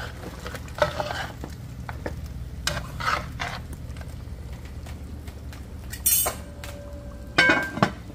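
A metal ladle stirring and scraping through beef curry in a large metal pot, with scattered clinks against the pot's sides. Near the end comes a louder clatter as the metal lid is set on the pot.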